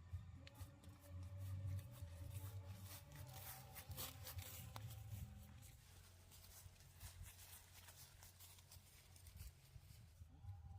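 Faint rustling and scattered small clicks over a low steady hum, busiest in the first half.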